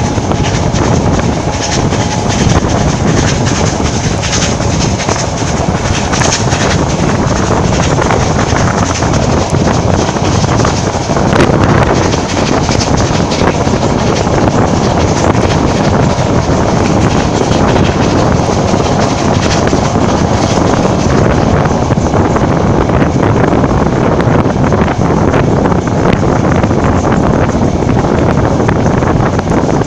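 Passenger coach of a steam-hauled train running at speed, heard from its open window: steady rumble of wheels on the rails, with strong wind buffeting the microphone. A brief louder gust comes a little over a third of the way in.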